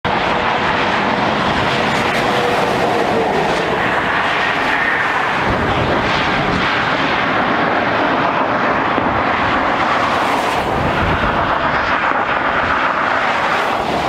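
Steady rushing hiss of highway traffic, tyres running on a wet, slushy road.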